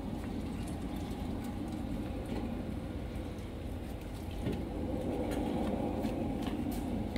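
Small bitumen sprayer's motor-driven pump running steadily, with a few faint clicks over it. It gets a little louder about four and a half seconds in.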